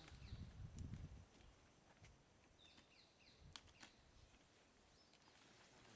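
Near silence: faint outdoor ambience with a steady high hiss, a few faint bird chirps near the middle, and a low rumble in the first second.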